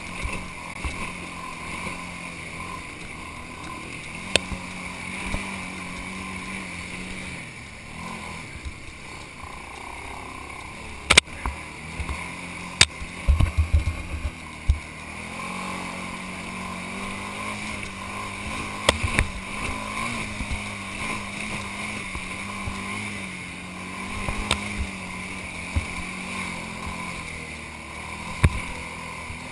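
ATV engine running steadily as the quad rides a rough dirt trail, its note easing off and picking up again with the throttle. Sharp knocks and rattles come from the machine going over bumps, in a cluster about halfway through and singly elsewhere.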